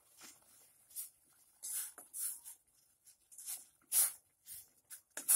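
Metal spoon scraping and knocking in a pot while a block of instant noodles is turned and stirred in boiling water: short, irregular scrapes, about one or two a second.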